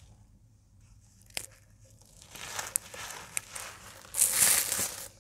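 Dyed cornstarch blocks crumbled and crushed by hand: a single sharp click about a second and a half in, then crackly crunching, loudest near the end.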